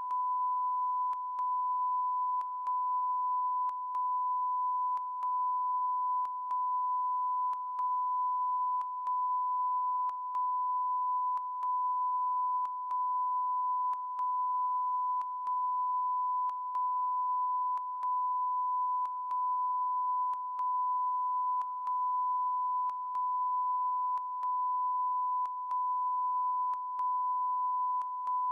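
Never-ending electronic beep: a steady, high-pitched pure tone on the broadcast sound, broken by a brief dropout with a click about every second and a quarter.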